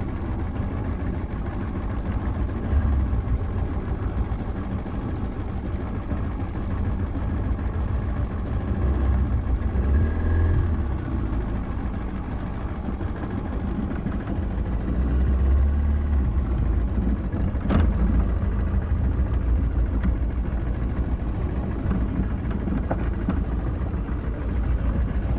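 Strong wind buffeting the microphone: a loud low rumble that swells and eases in gusts, with a single sharp click about eighteen seconds in.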